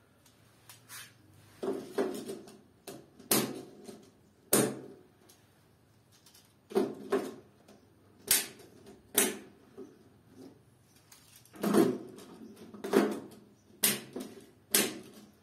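Plastic miniature circuit breakers and an RCCB being pressed onto a metal DIN rail and snapped into place: a dozen or so separate sharp clicks and knocks, about a second apart.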